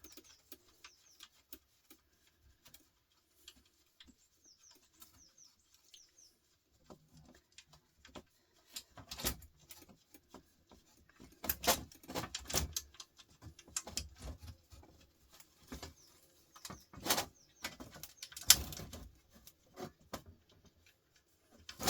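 Scattered sharp clicks and knocks of a screwdriver and small metal parts being worked while screws are taken out of an old record player, with faint high chirps in the first few seconds.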